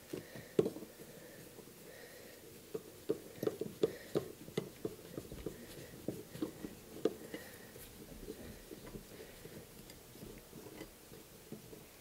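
Screwdriver turning the center screw of a metal outlet cover plate: faint, irregular small clicks and scrapes of metal on metal.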